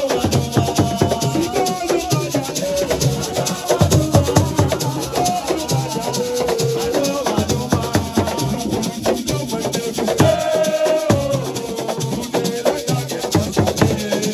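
Assiko music: drums keeping a steady beat under continuous shaker rattling, with a voice singing over it.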